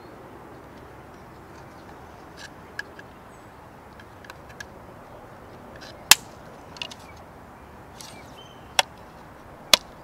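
Scattered sharp clicks and snaps of a screwdriver working the plastic fuel door hinge and its retaining clip on a BMW E34. The loudest snaps come about six seconds in and just before the end, with a few fainter clicks between, over a steady background hiss.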